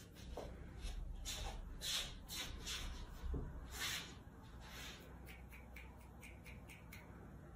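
A cat shifting its grip on a small wall-mounted peg step: faint scratchy rustles of claws, then a quick run of light ticks about three a second.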